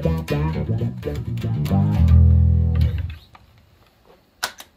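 Electric bass played through EBS OctaBass octave and BASSIQ envelope filter pedals: short notes with an auto-wah sweep, then a long low note held for about a second that dies away a little after three seconds. Two faint clicks follow near the end.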